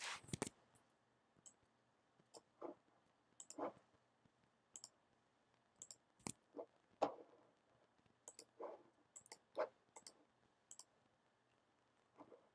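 Computer mouse clicking faintly while drawing and selecting in CAD software: scattered single clicks and quick pairs, at uneven intervals.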